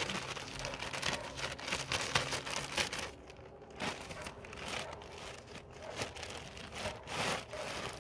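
A bag being handled and pulled open, crinkling and rustling in irregular bursts.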